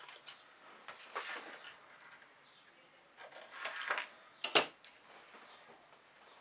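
Scissors cutting white cardstock and the sheet being handled on a cutting mat: a few short rustling strokes, with one sharp click about four and a half seconds in.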